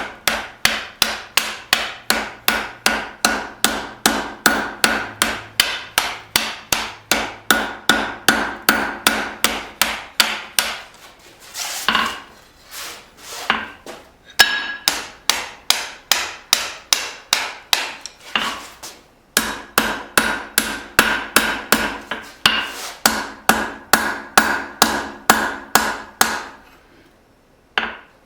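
Blacksmith's hand hammer striking hot leaf-spring steel on an anvil, forging in the tip of a knife blade: a steady run of ringing blows, about two and a half a second, with short breaks and stopping just before the end.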